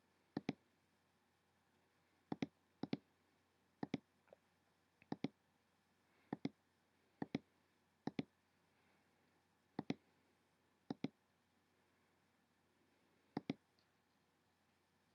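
Computer mouse clicking: about a dozen irregularly spaced clicks, many a quick double tick of button press and release, over near-silent room tone.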